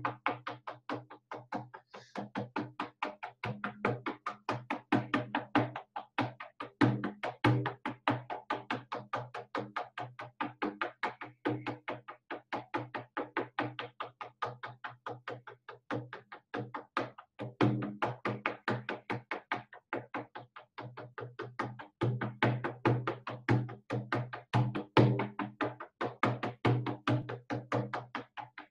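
Hand-held frame drum struck with a beater in a fast, steady, even beat with a deep tone: shamanic journey drumming.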